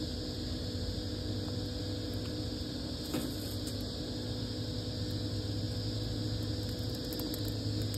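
A steady machine-like hum with a few faint crackles and ticks from a small twig fire burning in an outdoor fireplace, and one sharp click a little after three seconds.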